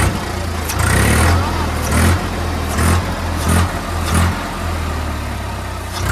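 Swaraj 855 tractor's three-cylinder diesel engine being revved in repeated short throttle blips, roughly once a second, with a lull before a last blip near the end.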